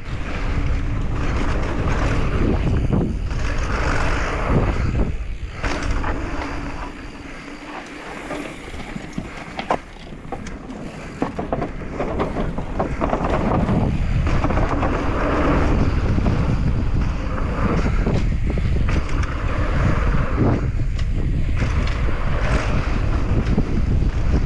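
Wind buffeting the camera microphone on a mountain bike descending a dirt trail, with tyre noise and the bike rattling and clicking over bumps. It drops quieter for a few seconds about a third of the way in, then builds again as speed picks up.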